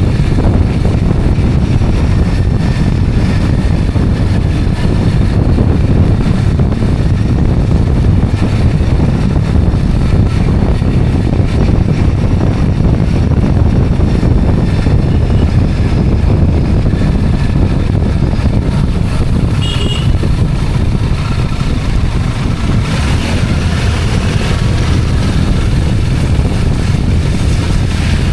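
Steady road noise from riding a motorcycle or scooter: engine hum and wind rushing over the microphone. A brief high tone sounds about two-thirds of the way through.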